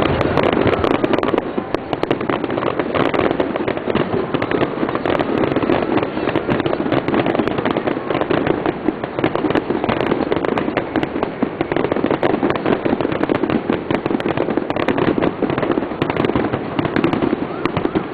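Fireworks display: a dense, continuous run of crackling and popping shell bursts, with sharp reports coming many times a second.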